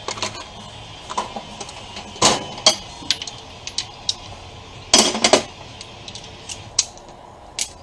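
Metal hand tools clinking and clattering as they are rummaged through, with a few louder knocks about two and five seconds in.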